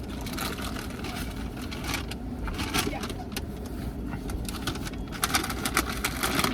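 Low steady rumble of a car idling, heard from inside the cabin, with scattered sharp clicks and rustles.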